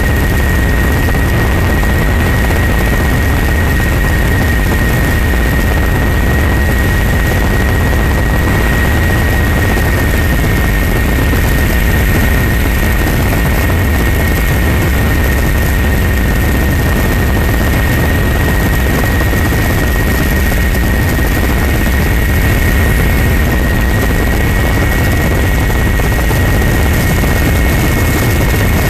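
Helicopter in flight, heard from aboard: a steady deep engine and rotor drone with a constant high whine running through it.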